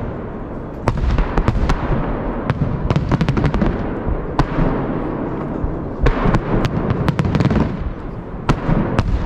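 Holiday fireworks salute: clusters of sharp bangs from bursting shells, several a second at times, over a continuous low rumble.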